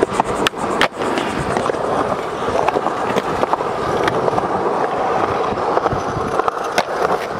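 Skateboard wheels rolling steadily on smooth concrete skatepark surfaces, with a few sharp clacks along the way.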